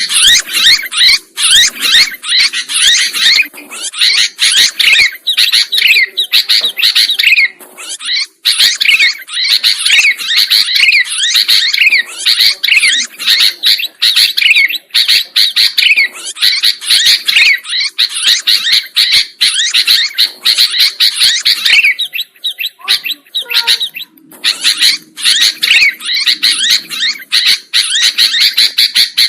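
Sooty-headed bulbuls (kutilang) chirping busily, a dense run of quick, overlapping chirps and short falling notes that thins out briefly a little past the middle.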